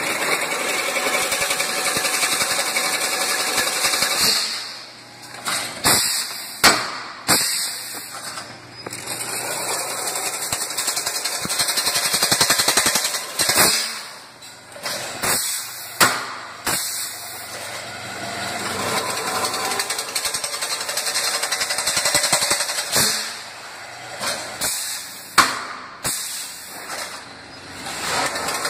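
Automatic chain-link fence weaving machine running: stretches of dense mechanical clatter and hiss, broken every few seconds by sharp metal clacks, in a repeating work cycle.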